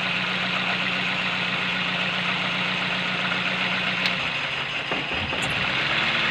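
Four-cylinder car engine idling with a misfire from a dead spark plug in cylinder three. About four seconds in the idle note changes and briefly dips as the power cable is pulled from cylinder one's ignition coil, the sign that cylinder one is firing.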